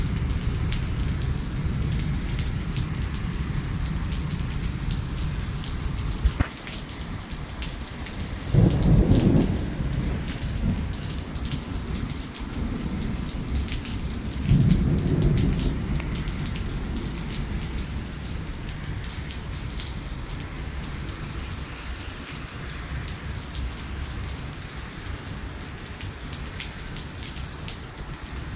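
Heavy rain pouring steadily onto pavement in a thunderstorm, with low thunder rumbling under it. Two louder rumbles come about nine and fifteen seconds in.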